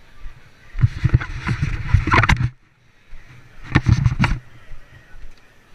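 Two bursts of rumbling, clattering noise on a helmet-mounted action camera's microphone, the second as a gloved hand comes up in front of the camera.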